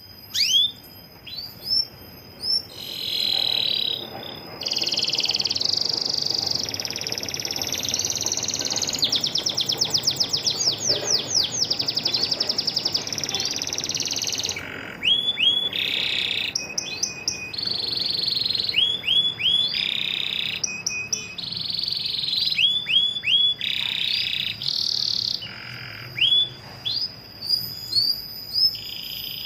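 Domestic canaries calling: short rising chirps repeated again and again, with long stretches of fast trilled song, a female canary calling to her mate.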